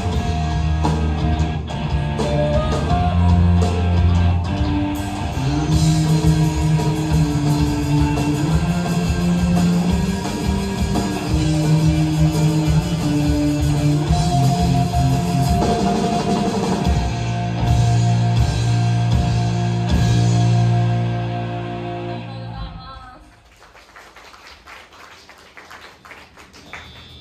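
Live rock band playing electric guitars and drum kit, ending on a long held chord that stops about 23 seconds in.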